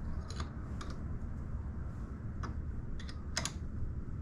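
A few sharp, short clicks, the loudest about three and a half seconds in, as a Honda CA160 engine is turned over slowly by hand with a wrench on the points-cam bolt to check whether the contact-breaker points open and give a spark. A steady low hum runs underneath.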